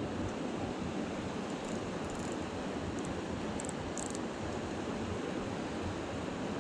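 Steady rushing noise of flowing creek water, with wind buffeting the microphone, and a few faint high ticks about two and four seconds in.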